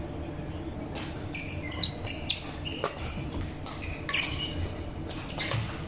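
Badminton players' court shoes squeaking on a wooden sports-hall floor in a run of short, high chirps during a rally, with sharp racket strikes on the shuttlecock in between, echoing in a large hall.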